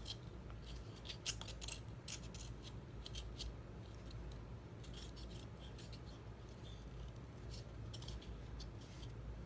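Irregular small clicks and light scraping of model-kit pieces being handled and pressed together.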